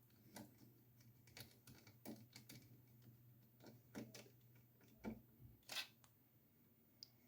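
Faint, irregular clicks and light scrapes of a small magnetic screwdriver on the tiny screws that hold the SSD in place in the laptop.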